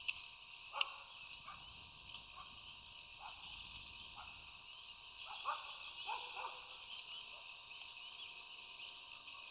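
Frog chorus: many small frogs calling together in a steady, high-pitched peeping, with several short falling calls over it in the first seven seconds.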